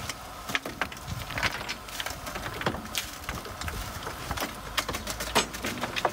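Lumps of coal clattering as they are tipped from a metal bucket into a steam locomotive's steel coal bunker: a rapid, irregular run of hard knocks and rattles over a low rumble of sliding coal.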